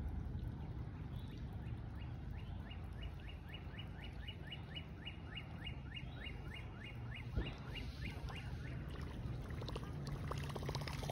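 A bird calling a long series of short downslurred notes, about four a second, for several seconds. A low outdoor rumble runs underneath, with a single sharp thump about seven seconds in.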